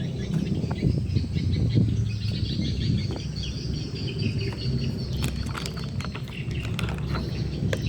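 Small birds chirping over a steady low rumble, with a few sharp clicks in the second half.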